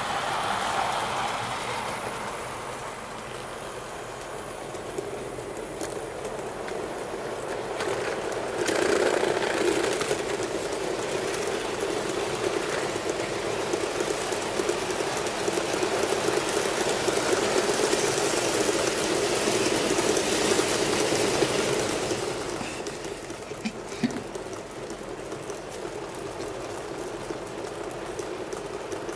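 Model train running on its track: a steady motor hum and wheel rumble that grows louder about eight seconds in and eases off after about twenty-two seconds as it passes close by, with a few sharp clicks from the rails.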